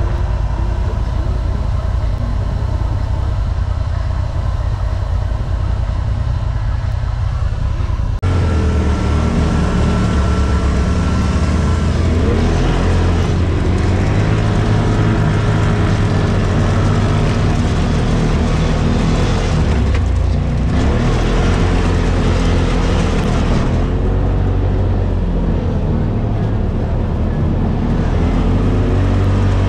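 Polaris RZR side-by-side's engine running under throttle while driving over sand dunes, its note rising and falling, heard from inside the open cab. About eight seconds in the sound jumps louder and deeper.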